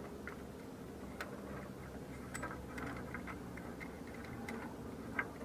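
Scattered light metallic clicks and ticks as a spark plug is started by hand back into the engine's cylinder head, over a steady low hum.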